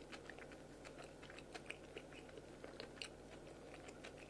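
Faint, irregular small clicks over a low steady hum, close to near silence.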